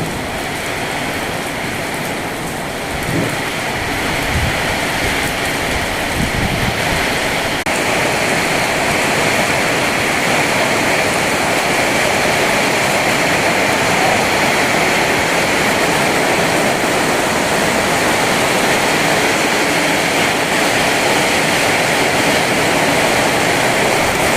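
Heavy rain and strong wind making a dense, steady rushing noise, with low rumbling through the first several seconds; it steps up louder about eight seconds in and stays there.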